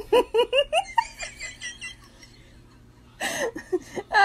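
A person laughing in a quick run of short giggles for about a second, then a pause, with more laughter near the end.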